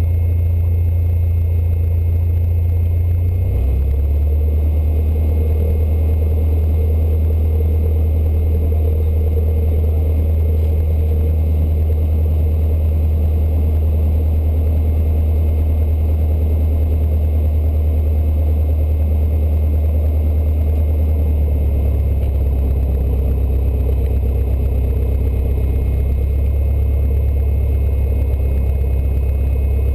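Cessna 152's four-cylinder Lycoming piston engine running, heard from inside the cabin as a steady low drone. Its pitch drops a little a few seconds in and rises again about twenty seconds later as the throttle is moved.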